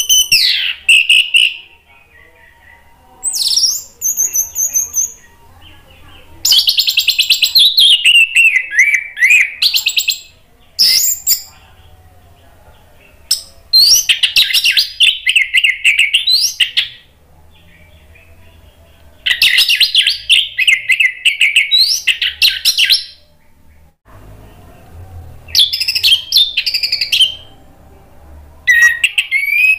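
Orange-headed thrush singing in full voice: loud, varied phrases of rapid whistles and trills, each lasting a second to a few seconds with short pauses between them.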